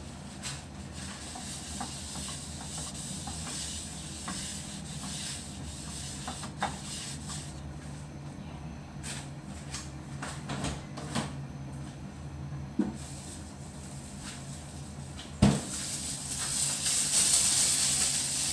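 Gas stove burner hissing steadily under an empty frying pan as it preheats, with a low hum, scattered light clicks and knocks from kitchen handling, and one sharp knock about fifteen seconds in. After the knock, a louder rustling hiss builds up toward the end.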